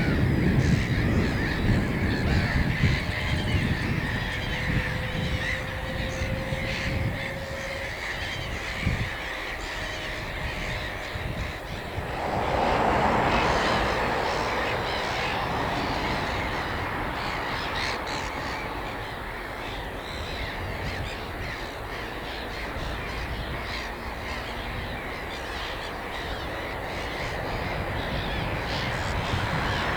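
Wild birds calling outdoors, a mix of harsh cawing calls over a steady background, with the calling growing denser about twelve seconds in.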